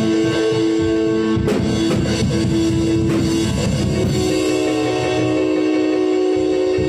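Live gospel praise music: held keyboard chords with drums, and a few sharp cymbal or drum hits in the first half.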